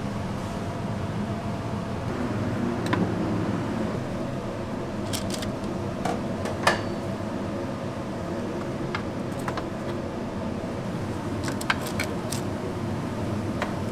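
Steady hum of a kitchen fan, with scattered sharp clinks of metal utensils, tongs and a metal ramekin, against stainless-steel trays and counters, the loudest a little under seven seconds in.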